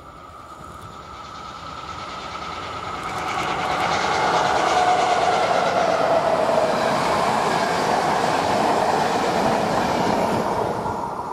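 EU07 electric locomotive and intercity passenger coaches passing: the rush of wheels on rail with clickety-clack builds over the first few seconds, holds while the coaches go by, and fades near the end.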